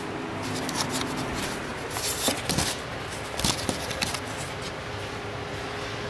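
Handling noise from a handheld camera being moved and turned around: scattered rustles and clicks with a few soft thumps, over a steady background hum.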